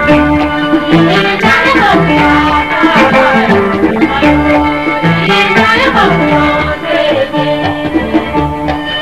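Live Malian Wassoulou band music with a steady drum beat, held notes and high melody lines that glide up and down.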